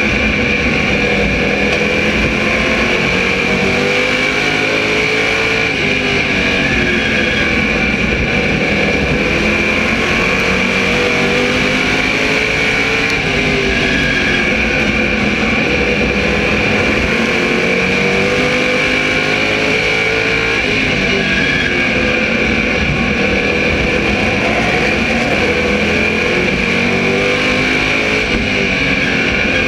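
SK Modified race car's small-block V8 heard from on board at racing speed, its note falling and rising again with the throttle lap after lap. A steady high whine runs over the engine.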